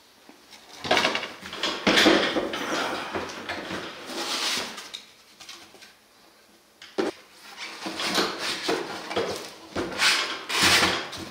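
Metal-tabbed shipping crate being unfastened and handled: clinks, scrapes and rustling, with a sharp click about seven seconds in and more clatter near the end.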